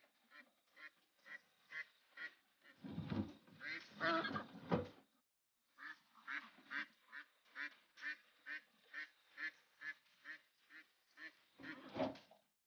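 Ducks quacking over and over, about two calls a second, while they are being caught and crated. A louder stretch of scuffling and thumps comes about three to five seconds in, and again briefly near the end.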